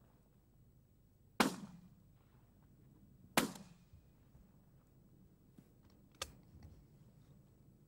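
Shotgun fired twice, about two seconds apart, each report sharp with a short echoing tail. A fainter sharp click follows a few seconds later.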